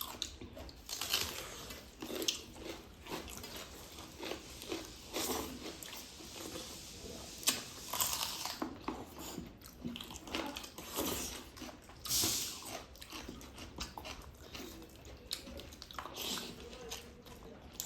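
People chewing and eating a meal of rice and curry, with irregular smacks and crunches.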